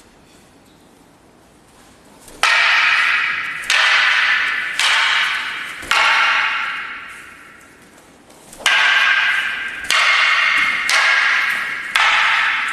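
Wooden martial-arts staffs striking each other: four sharp clacks about a second apart, a pause, then four more. Each knock rings and echoes in the hall before fading.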